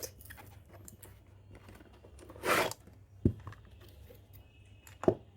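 Handling noises from a plastic hair dryer being handled: a brief rustle about two and a half seconds in, and two sharp knocks, one near the middle and one near the end.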